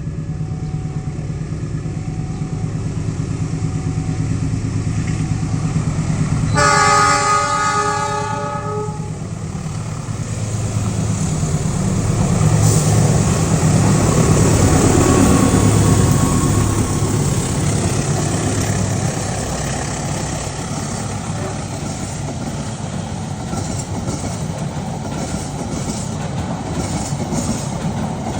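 Passenger train hauled by two diesel locomotives passing, engines running. The horn is blown once for about two seconds, around seven seconds in, then the train gets louder as it goes by, its wheels clacking over the rail joints.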